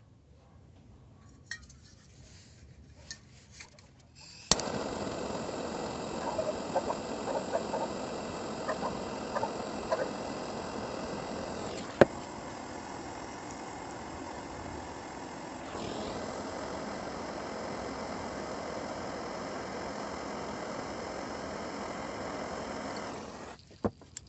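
Electric wood router running for about 19 seconds. It starts and stops abruptly, with a steady high whine over a rushing noise, scattered crackles in the first few seconds and one sharp click about halfway through.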